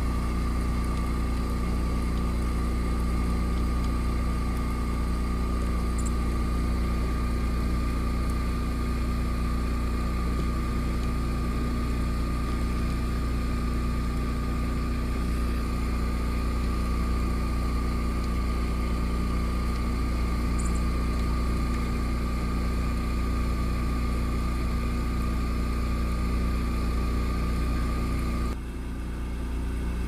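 Steady mechanical hum like a motor or engine running at idle, with a steady whine above it and no change in speed; the sound dips and turns duller about two seconds before the end. Two brief faint high chirps come through the hum.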